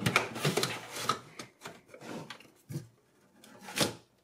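DVD drive's metal casing sliding into the steel drive bay of a desktop PC case: metal scraping and rubbing with clicks, densest in the first second or so, then a few scattered knocks and scrapes.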